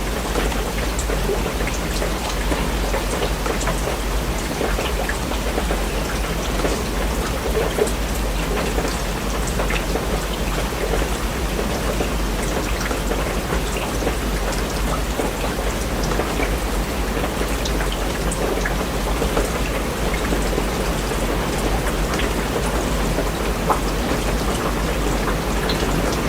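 Steady rain falling, a continuous hiss with scattered individual drops ticking through it, over a constant deep low rumble.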